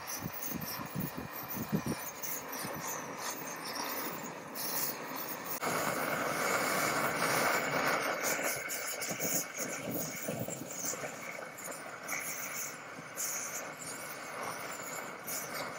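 Brass kerosene pressure camping stoves burning with a steady roaring hiss: first a Svea, then, after a sudden change about five and a half seconds in, a Manaslu whose burner roars louder and fuller, easing off gradually toward the end.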